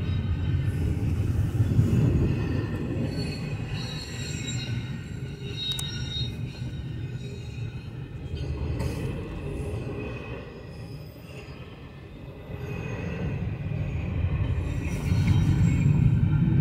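CSX double-stack intermodal train rolling past: a low rumble from the container well cars with high wheel squeal over it. It quietens around the middle and grows louder again near the end.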